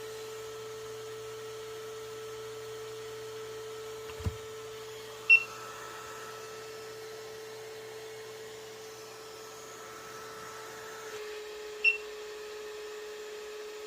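Steady electrical hum from an RC excavator's electronics, broken by two short high beeps about six seconds apart, with a soft knock just before the first beep.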